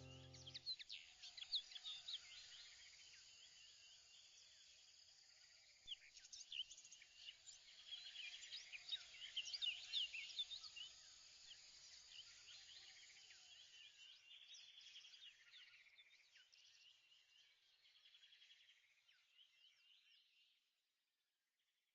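Faint chorus of many birds chirping in quick short calls, busiest around the middle and fading out near the end.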